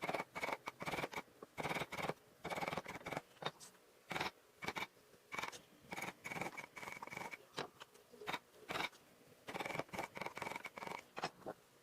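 Wood being carved by hand: a series of quick, irregular scraping and cutting strokes of a blade in wood, several a second, with short pauses between runs.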